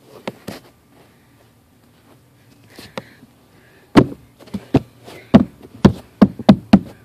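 A run of sharp knocks on a hard surface, about eight in three seconds, starting about four seconds in, with a few fainter taps before it.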